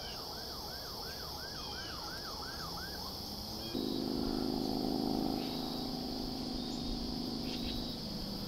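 A distant siren sweeps up and down in pitch about two to three times a second for the first three seconds, over a steady high buzz of insects. From about four seconds in, a louder low, steady drone like a motor takes over.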